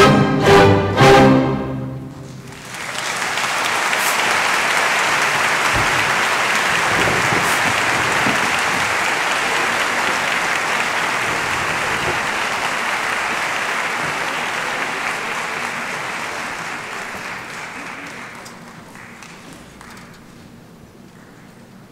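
Symphony orchestra ending a piece with loud chords in the first second or so, then audience applause that starts about two and a half seconds in, holds steady, and dies away near the end.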